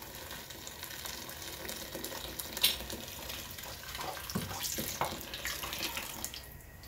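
Water pouring in a steady stream from an electric kettle into a pot of potato and tomato stew, splashing into the liquid.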